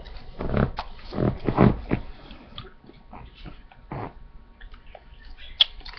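Irregular muffled bumps and rustles close to a laptop's built-in microphone: several in the first two seconds, one about four seconds in and a short one near the end.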